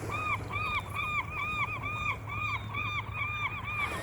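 An animal giving a rapid run of short, high, whistle-like calls, about four a second, that stops shortly before the end.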